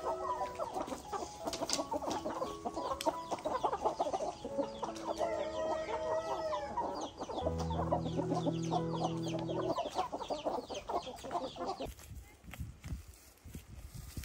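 A flock of chickens clucking, with many short overlapping calls. About halfway through, a low steady sound runs under them for about two seconds. The clucking stops near the end, leaving quieter outdoor noise.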